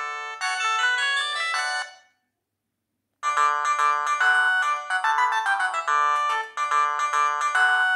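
BenQ-Siemens A38 mobile phone ringtones. One melody stops about two seconds in, and after about a second of silence the next ringtone tune starts and plays on.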